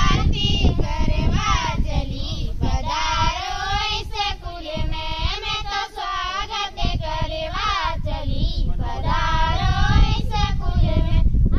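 A small group of schoolgirls singing a welcome song together, without instruments, their voices wavering through the melody. A steady low rumble runs underneath.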